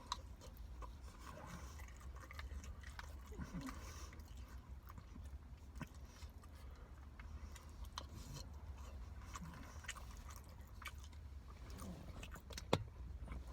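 Quiet chewing of chicken biryani: soft mouth clicks and smacks scattered through, over a low steady hum.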